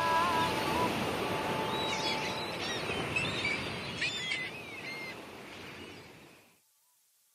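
A steady wash of surf with birds chirping over it, as a song's nature-sound outro. The song's last held note dies out in the first second or so, and the surf and birds fade away about six and a half seconds in.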